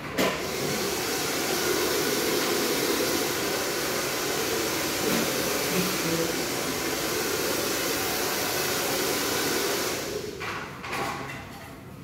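Handheld blow dryer running steadily while a barber dries a customer's freshly cut hair; it comes on right at the start and switches off about ten seconds in.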